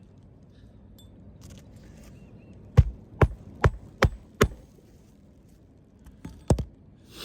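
Hammer striking roofing nails into asphalt shingles: five quick, evenly spaced blows, then one more near the end.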